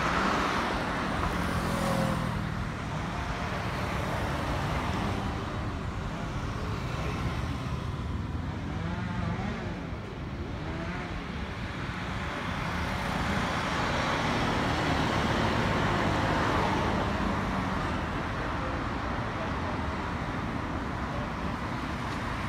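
Steady city road traffic: cars and motorcycles passing close by, their engine and tyre noise swelling as each goes past. There is a louder pass near the start and a longer swell about two-thirds of the way in.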